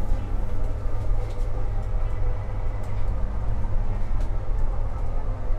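French regional passenger train running, a steady low rumble heard inside the carriage.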